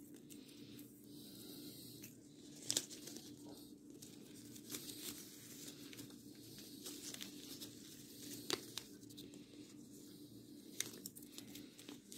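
Plastic gift ribbon rustling and crinkling faintly as it is folded and looped by hand, with a few sharp ticks, the clearest about a third of the way in and again past two thirds.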